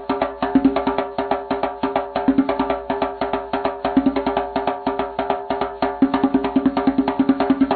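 Background music with a fast, busy wood-block-like percussion beat over steady held notes.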